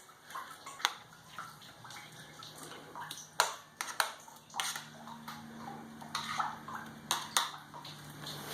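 Scattered knocks and clinks of metal pans and wet pressed briquettes being handled, with water dripping, over a low steady hum that starts about a second in.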